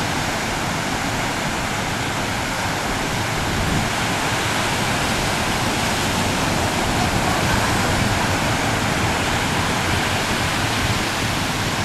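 Steady rushing noise of wind and water around a moving boat at sea. It is an even hiss with no clear engine tone.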